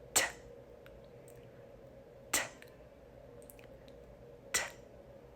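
A woman's voice saying the isolated consonant 't' three times, about two seconds apart: short, crisp puffs made with the tongue tip behind the teeth and the voice off, a voiceless /t/ articulation drill.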